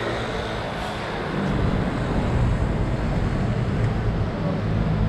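Street traffic noise with a motor vehicle engine running close by, its low hum growing louder about a second and a half in.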